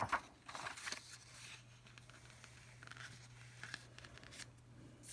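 Faint, scattered rustles and light scrapes of a sheet of drawing paper being handled on the table, over a low steady hum.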